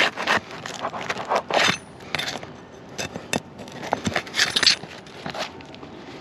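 Roofing nails being pried out from under asphalt shingles: a metal tool scrapes and clicks irregularly against the shingles and nails.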